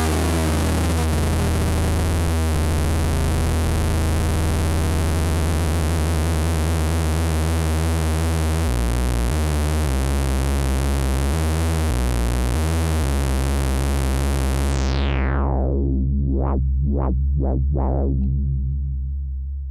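Moog Werkstatt-01 analog synthesizer playing a loud, buzzy bass drone full of overtones. Partway through the bass jumps between notes a few times. Then the filter closes in a falling sweep, four quick filter blips follow, and the sound dies away near the end.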